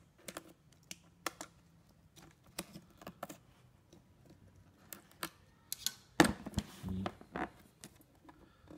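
Sporadic clicks and short scrapes of a box cutter and hand on a cardboard box as its seal is cut, with a louder scrape a little after six seconds in.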